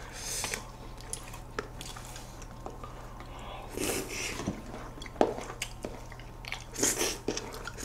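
Quiet eating sounds: a few short slurps and lip smacks of melted ice cream, with a light click of a fork against the serving board.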